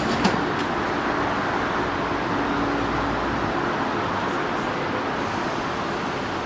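Steady rumble of city traffic and rail noise, with one sharp click about a quarter second in.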